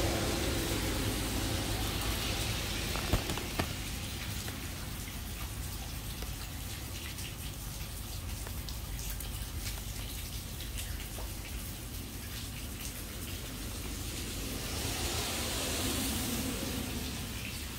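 Steady hiss and patter of water falling on the lawn, with a couple of sharp ticks about three seconds in. Near the end a car passes on the road, swelling and fading.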